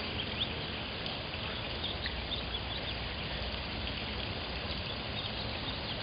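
Outdoor ambience: a steady hiss of background noise with faint, scattered bird chirps.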